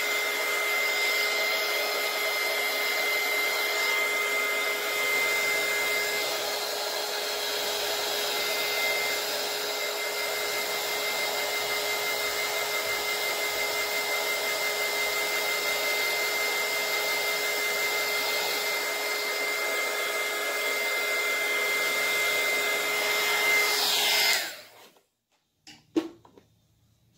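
Heat gun blowing hot air to dry acrylic paint on a rock: a steady rush of air with a high motor whine. Near the end it is switched off and the whine falls away quickly, followed by a sharp click.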